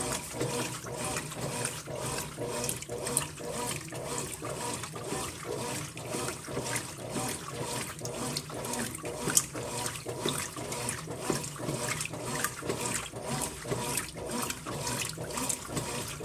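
Brastemp Ative 11 kg washing machine churning a load of towels in water during its soak stage: continuous sloshing with frequent, irregular splashes.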